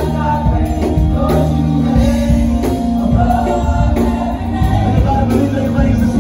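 Live gospel worship music: a church band with steady held bass notes under several singers.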